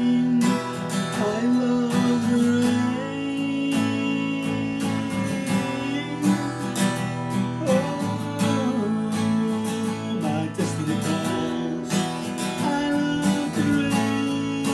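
Acoustic guitar strummed in a steady rhythm while a man sings over it in long, held notes.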